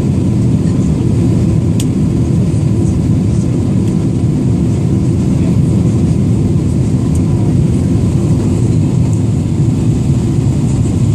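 Steady low cabin noise of a Boeing 777-300ER in flight: its GE90 engines and the airflow over the fuselage heard from inside the cabin.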